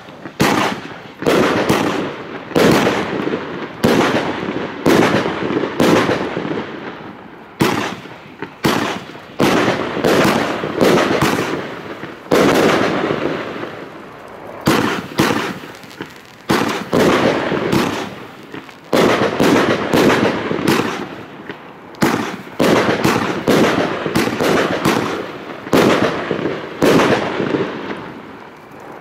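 Luypaers 8456 Asiatic Wildcat consumer firework cake firing shot after shot. Each shot is a sharp bang with a short fading tail, coming roughly every half second to a second, with a brief lull around the middle.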